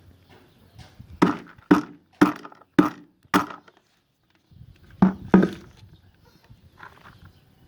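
Chopping strokes on wood: five quick, even chops about half a second apart, then a pause and two more chops.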